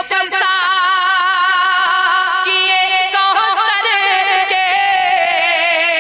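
A naat reciter's voice singing long, drawn-out notes with a strong wavering vibrato, the melody moving to a new note about halfway through.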